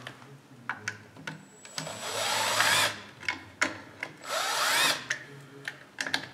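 A handheld power tool's motor whirring up in pitch in two short bursts, with clicks and knocks of metal engine parts being handled between them.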